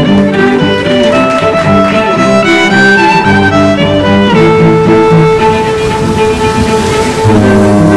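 Background music: a melody in long held notes, with a lower sustained note coming in near the end.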